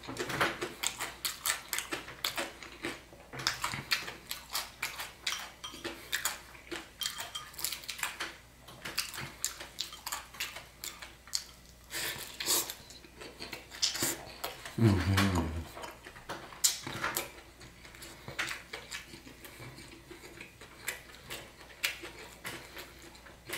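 Close-up eating: chewing crisp pan-fried pho noodles with utensils clicking against a plate, many irregular sharp clicks. A brief low sound about fifteen seconds in.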